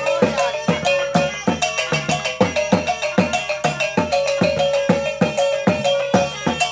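Talempong pacik: small handheld bronze gong-chimes struck with sticks by several players, in a fast, even interlocking rhythm of ringing metallic strokes, several a second.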